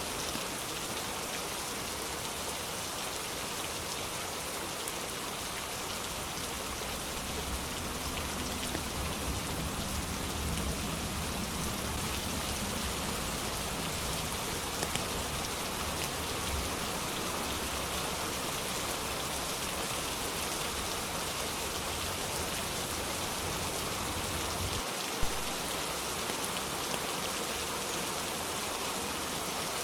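Steady, dense rain hissing evenly. A low rumble swells and fades in the middle, and a single sharp tick sounds near the end.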